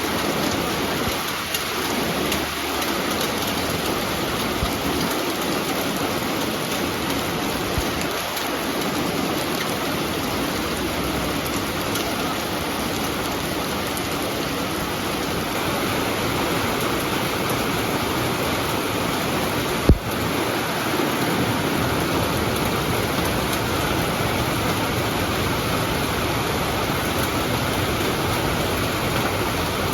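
Steady rain falling, an even hiss with no break, and a single sharp click about twenty seconds in.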